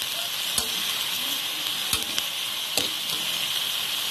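Salmon and prawns sizzling in a hot wok with a steady hiss. A spatula stirs them and knocks against the pan four or five times.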